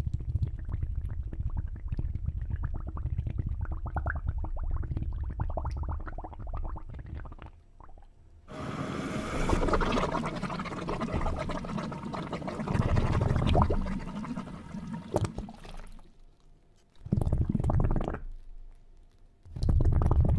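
Water sloshing and rushing with a low rumble. A louder stretch of rushing water runs through the middle, and two short splashing bursts come near the end.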